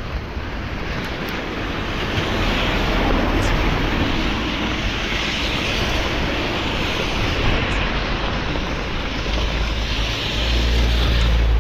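Wind buffeting the microphone over a steady rushing hiss, getting louder through the stretch, with the low rumble strongest near the end.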